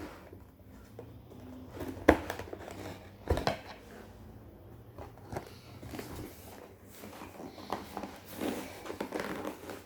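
A tightly sealed cardboard box being worked open by hand, with rustling, crinkling and scraping. Two sharp knocks come about two seconds and three and a half seconds in.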